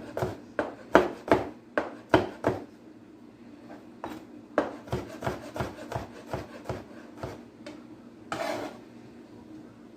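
Kitchen knife cutting vegetables on a cutting board: a run of sharp knife strokes, loudest in the first few seconds and then lighter and more spaced, with a brief scrape about eight seconds in.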